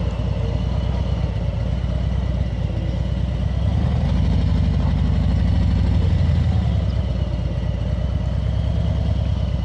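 Motorcycle engine running at low speed as the bike rolls slowly through a parking lot, a steady low rumble that swells a little for a couple of seconds midway.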